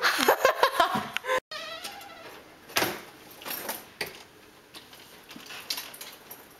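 A woman laughing in short, choppy bursts for about a second and a half. Then a door opens and a wheeled suitcase is pulled along the floor, with scattered clicks and knocks.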